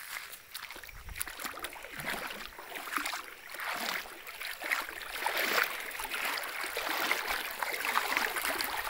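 Shallow stream running over a riffle around a snag of logs: a steady trickling, babbling rush of water that grows a little louder about halfway through.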